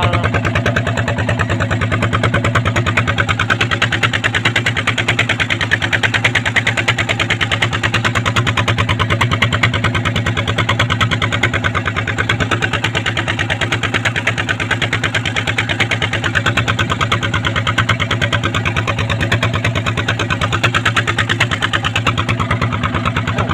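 A boat's engine running steadily at an even speed, with a fast, regular pulsing and a strong low hum.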